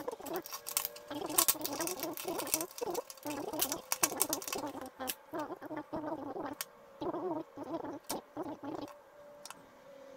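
Chickens clucking in repeated short calls, with scattered light clicks and taps from an analog multimeter's plastic case and circuit board being unscrewed and handled.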